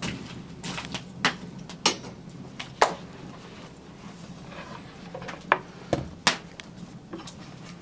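Kitchen utensils handled at a wok and a wooden chopping board: about half a dozen sharp metal clinks and wooden knocks as a wooden-handled ladle is set into a steel wok and an onion is put down on the board.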